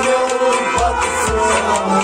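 Kashmiri folk ensemble: a harmonium holds sustained chords, a rabab is plucked and a drum strikes a few deep beats. A man's singing voice glides through the music.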